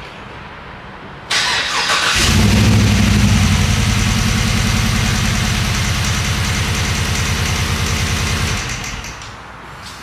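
2015 Chevrolet Silverado's 5.3 L V8 started: the starter cranks a little over a second in, the engine catches about a second later and runs with an even pulsing beat for about six seconds, then stops. Its cylinder 1 has almost no compression and misfires, even with oil added to the cylinders.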